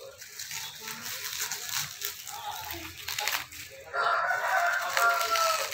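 Black plastic parcel bag crinkling and rustling as it is pulled open by hand. About four seconds in, a long, loud crowing call takes over and dips slightly in pitch near its end.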